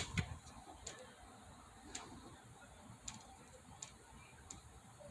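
Faint, sharp ticks about once a second, spaced a little unevenly, over quiet room tone.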